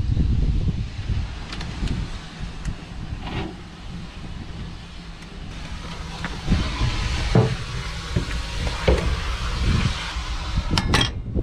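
Split firewood logs knocking and clunking against the steel footplate of a steam traction engine as they are handled, several separate knocks over a steady low rumble. A hiss rises for a few seconds in the middle.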